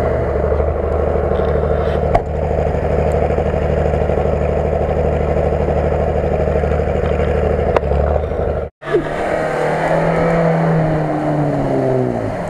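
Lada Niva's four-cylinder petrol engine held at high, steady revs as the car churns through deep mud; after a break about two-thirds of the way in, the revs rise and fall as it keeps pushing on.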